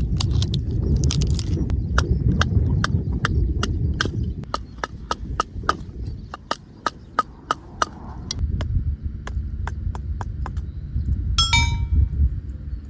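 Knife batoned through firewood with a piece of firewood as the striker, splitting kindling: sharp wooden knocks repeated about three times a second, over a steady low rumble. Near the end comes a single short ringing metallic clank.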